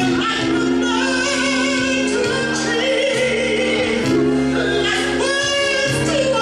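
A woman singing long, wavering held notes over sustained electric keyboard chords.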